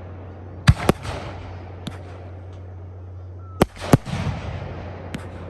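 Fireworks exploding: two close pairs of sharp bangs, one about a second in and one past the middle, each followed by a crackling trail, with a single crack between them and a few fainter pops near the end.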